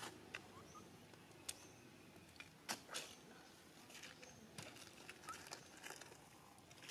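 Near silence with scattered faint clicks and a few brief, faint high chirps.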